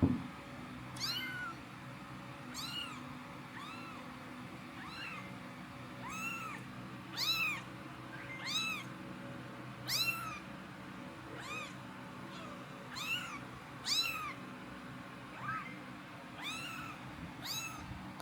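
Nine-day-old kitten mewing over and over, about a dozen short high mews, each rising then falling in pitch, over a low steady hum.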